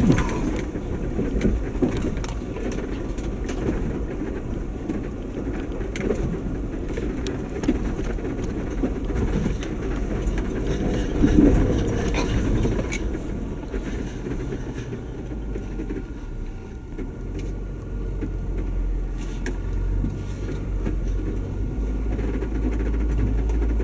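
2019 Jeep Wrangler Unlimited Sahara 4x4 crawling along a rough dirt trail: a steady low engine and drivetrain rumble with tyre noise, broken by occasional knocks and rattles over bumps, the loudest about eleven seconds in.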